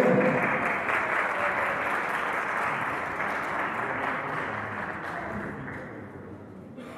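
An audience applauding, the clapping gradually dying down.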